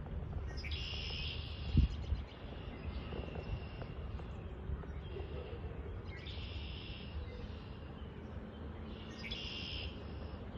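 A forest bird calling three times, each a high call lasting about a second, over a steady low rumble. A single sharp thump about two seconds in is the loudest sound.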